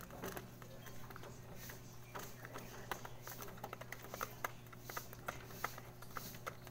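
Pigeons pecking pellet feed from a plastic trough feeder: a quick, irregular run of small clicks and taps.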